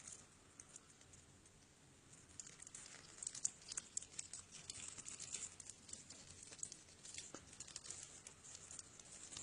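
Slime being squeezed and pressed by hand, giving quiet crackling clicks and small pops, sparse at first and much busier from about two seconds in.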